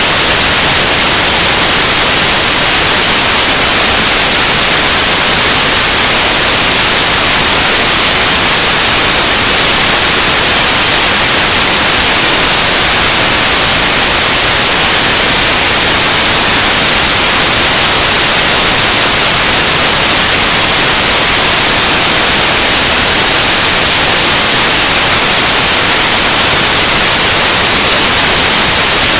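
Noise music: a loud, unbroken wall of hiss, brightest in the high end, with no rhythm or change.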